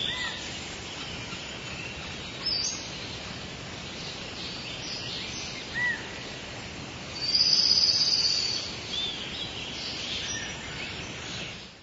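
Small birds chirping and singing over a steady outdoor background hiss: short arched chirps about a quarter second in and again near six seconds, and a louder high trill from about seven to eight and a half seconds in.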